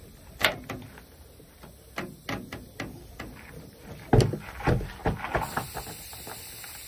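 Heavy knocks and thumps from an implement wheel and tire being rolled and set down on a truck deck, coming irregularly, with the heaviest thump about four seconds in.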